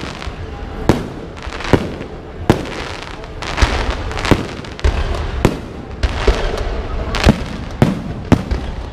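Fireworks going off: a string of sharp bangs, about one a second, over continuous crackling.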